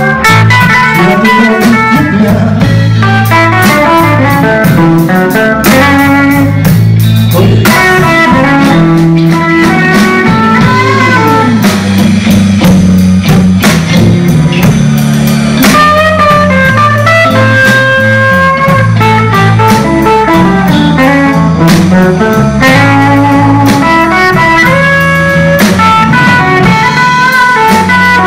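Live electric blues band playing an instrumental passage: electric guitar runs of single notes with bent notes over bass and a drum kit.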